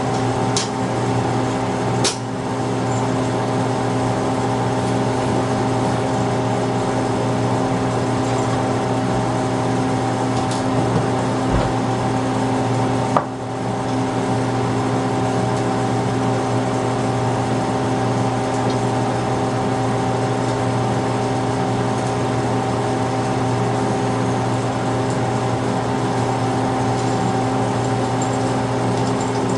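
Steady hum of running laboratory equipment, with several constant tones held throughout. A few sharp clicks of small tools being handled at the optical table, the loudest about 13 seconds in.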